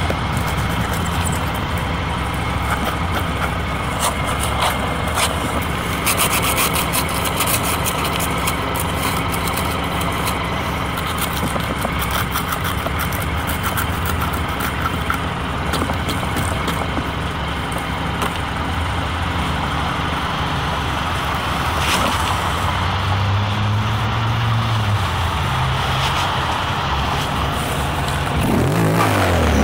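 Small motorcycle engine running while riding, heard through a handlebar-mounted camera with wind noise and rubbing and rattling on the mount. The engine note rises briefly about three-quarters of the way through, and a gloved hand brushes the camera near the end.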